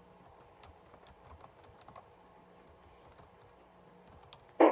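Typing on a computer keyboard: faint, irregular key clicks, with one brief louder sound near the end.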